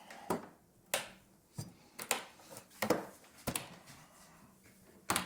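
A series of sharp, irregular knocks and clicks, about eight in five seconds, like hard objects being handled and set down.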